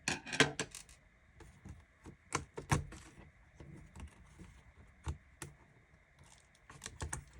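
Irregular small clicks and taps of a screwdriver, tiny screws and the laptop's plastic display parts being handled while the screws holding the LCD panel in a ThinkPad X220 lid are taken out.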